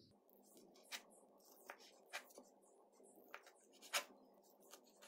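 Kitchen knife cutting through a soft steamed cabbage vada roll and tapping on a wooden cutting board: about six faint, sharp taps half a second to a second apart, the loudest about four seconds in.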